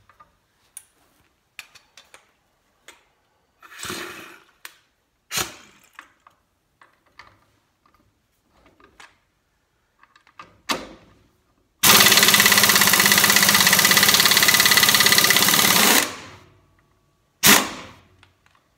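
Modified air impact wrench hammering for about four seconds on a lug nut torqued to 150 foot-pounds, struggling a little before it breaks the nut loose, then one brief second burst near the end. Before it come scattered clicks and knocks as the socket is handled and fitted onto the nut.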